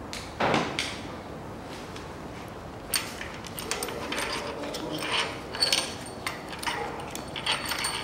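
A dull thump about half a second in, then a run of sharp metallic clicks and clinks: hand tools working on the bolts of a Daewoo Nexia 1.5's cylinder head.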